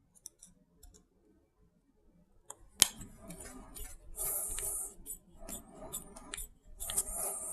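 Small screws being turned into a plastic RC car differential case with a hex driver: tiny clicks, then a sharp click about three seconds in and irregular bursts of scraping and clicking.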